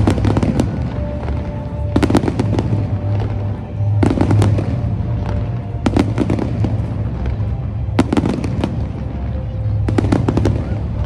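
Fireworks going off in volleys about every two seconds, each volley a quick cluster of sharp bangs and crackles. Music with a heavy bass plays underneath.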